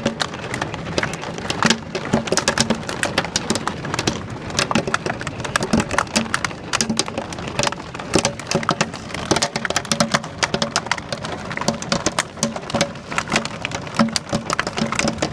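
Hail and heavy rain pelting a window, a dense, steady clatter of hard impacts.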